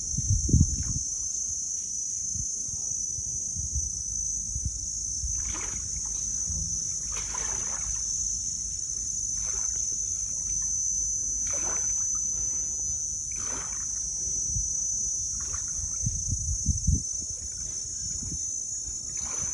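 River water lapping against a concrete landing in soft splashes every couple of seconds, over a steady high chorus of insects and a low rumble.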